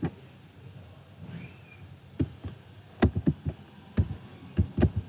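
Typing on a computer keyboard: a run of about eight separate keystrokes in an uneven rhythm, starting about two seconds in.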